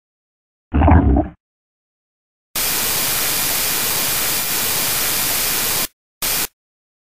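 A single short, loud thump about a second in. Then a steady, even static hiss runs for about three seconds and cuts off suddenly, followed by a brief blip of the same hiss.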